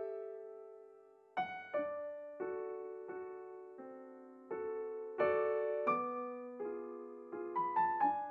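Slow solo piano music, single notes and chords struck and left to fade.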